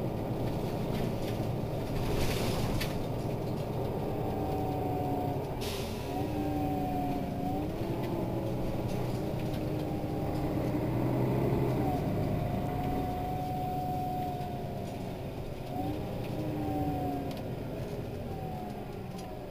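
Mercedes-Benz Citaro city bus driving: diesel engine drone with a drivetrain whine that rises and drops several times. Two short air hisses come about 2 and 6 seconds in.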